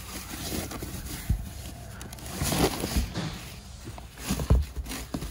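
Foam packing sheets and cardboard rustling as coilovers are shifted about in their box, with a few knocks from the shocks being handled.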